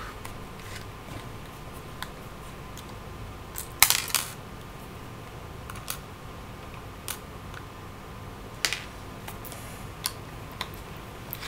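Scattered small metallic clicks and taps of a screwdriver and small screws as the side screws come out of a laptop hard drive's metal caddy, with the loudest clatter about four seconds in.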